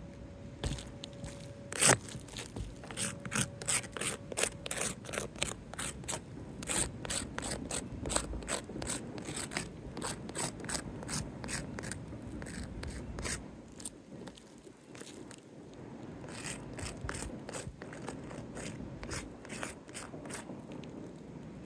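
Irregular clicking and scraping of hands and a marking or measuring tool working over granular asphalt roof shingles, with one sharp loud click about two seconds in.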